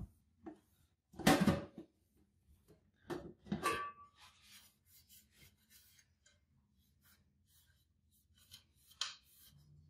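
Handling noises from a gold-plated watch case being turned over in the fingers: a loud rub about a second in, two more around three seconds in, then scattered light clicks and a small scrape near the end.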